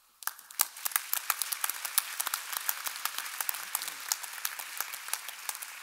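Audience applauding: a steady patter of many hands clapping, with single sharp claps standing out, starting just after the start.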